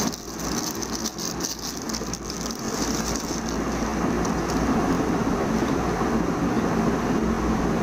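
Clear plastic wrapping crinkling and rustling in the hands as a mobile phone is unwrapped, a dense steady crackle with sharper crackles in the first few seconds.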